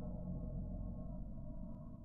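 Background music of sustained, drone-like low tones, easing off slightly toward the end.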